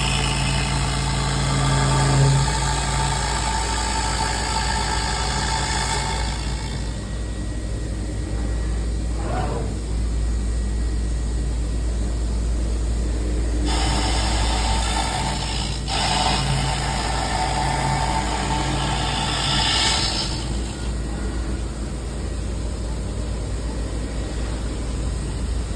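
Gantry CNC machining center with a 5.5 kW spindle milling a foundry pattern. A steady low machine hum runs under stretches of louder, hissing cutting noise that come and go as the tool works.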